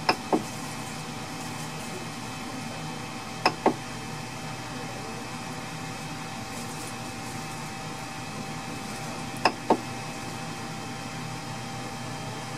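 Steady hum of a powered-on Ender 3 Pro 3D printer's fans, with a faint steady whine, and three pairs of short clicks as the printer's LCD control knob is pressed and released.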